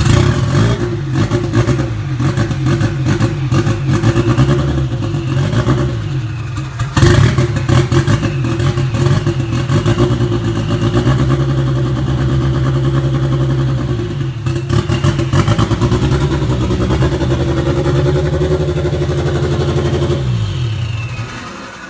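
Ford Focus RS Mk1's newly fitted engine running on its first start after the swap, with a sudden jump in level about seven seconds in, then slowing and stopping near the end as it is switched off.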